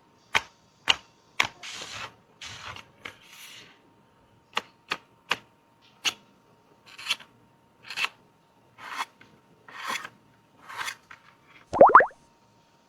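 Makeup packaging being handled: sharp separate clicks and taps, then short rustles at about one a second, and a loud rising squeak near the end, over a faint steady hum.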